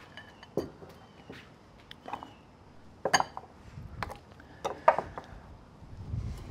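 Small wooden prep bowls handled and stacked on a wooden butcher-block board: scattered knocks and clinks, the sharpest about three and five seconds in.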